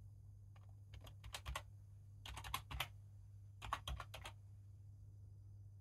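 Computer keyboard keys being typed, entering a login password: short runs of faint key clicks with pauses between them, over a steady low hum.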